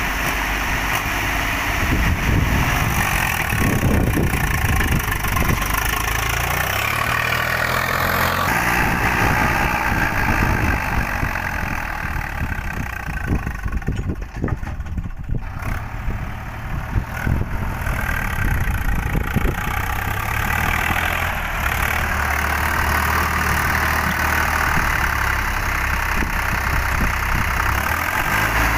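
Old Standard diesel tractor engine running under load as it pulls a trolley heaped with sand. It grows softer and patchier for a few seconds around the middle as the tractor moves away, then runs steadily and close by near the end.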